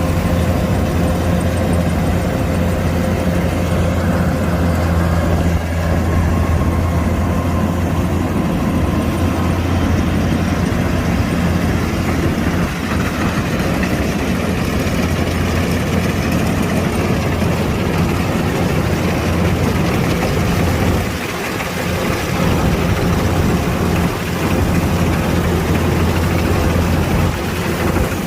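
Kubota DC-105X combine harvester's diesel engine running steadily with a heavy low hum, dipping briefly about three quarters of the way through.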